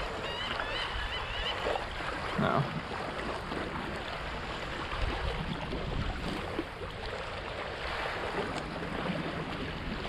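Small waves lapping at a lake shore, with wind on the microphone: a steady wash of water noise.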